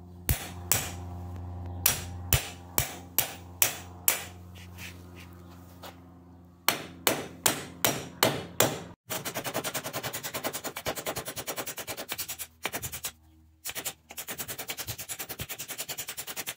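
Ball peen hammer peening over steel rivets on a sickle bar mower's cutter section, hammering against a maul head used as an anvil. It starts with single ringing strikes about two a second, then goes into a fast run of light, rapid taps with a brief pause near the middle.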